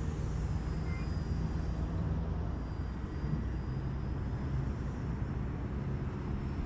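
Radio-controlled Extra 3D aerobatic model plane with a 120 cm wingspan flying at a distance, its motor a faint steady drone with a thin high whine, over a low rumble.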